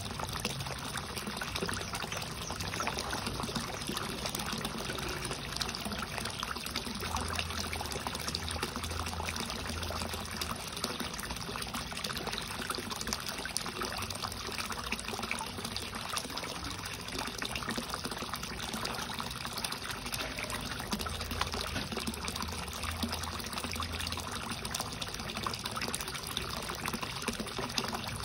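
Water trickling and splashing steadily into a koi pond.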